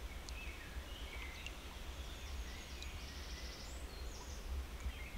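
Small birds calling faintly: scattered short chirps and a brief rapid trill about three seconds in, over a low steady rumble.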